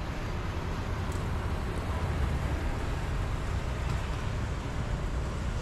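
Steady outdoor background rumble of distant road traffic, a low even hum with a faint hiss over it.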